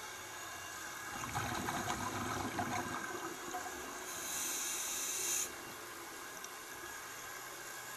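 Scuba diver breathing through a regulator underwater: a rush of exhaled bubbles starting about a second in and lasting about two seconds, then a hissing inhalation that cuts off sharply just past the middle. A steady underwater hiss lies underneath.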